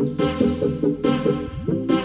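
Intro music: a quick, repeating run of pitched notes over a steady beat.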